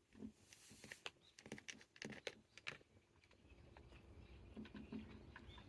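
A kitten eating its meal: faint, irregular small clicks and smacks at the food.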